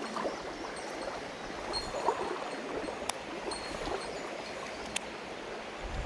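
Mountain stream water flowing steadily, with two sharp clicks about three and five seconds in.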